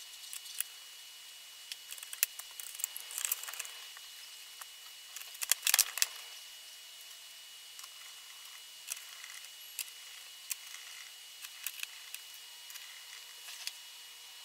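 Scattered small plastic clicks and taps as the Dell Inspiron M5010 laptop's palm rest and case parts are fitted back together and pressed into place, the loudest cluster about six seconds in.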